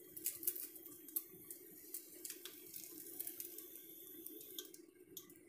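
Faint sizzling and crackling of a souffle omelette frying in a pan, with a few light scrapes and taps of the spatula as it is folded, over a steady low hum.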